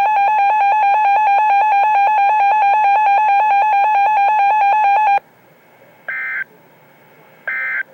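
Emergency Alert System attention tone, a loud buzzing tone broken into rapid even pulses, cutting off abruptly about five seconds in. It is followed by two short warbling data chirps, the end-of-message code of the alert, over faint hiss.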